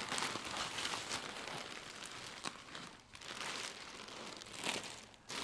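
Packaging material rustling and crinkling as it is handled, with a few light clicks.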